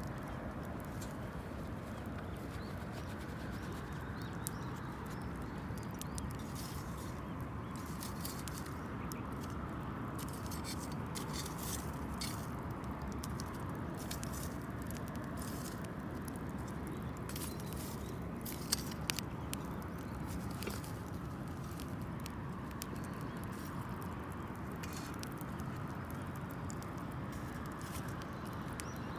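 Wood campfire crackling: scattered sharp crackles over a steady low rushing of the flames, with a few louder pops about two-thirds of the way through.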